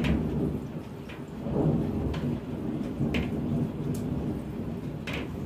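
Rain with a low rolling rumble of thunder that swells about a second and a half in, and several sharp ticks scattered through it.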